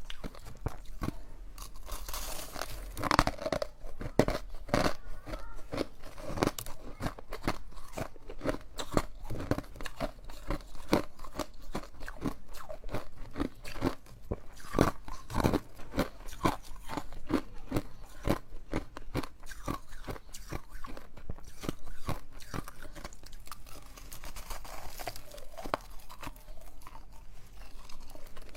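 Ice being bitten and chewed close to the microphone: dense, irregular crunching and cracking throughout.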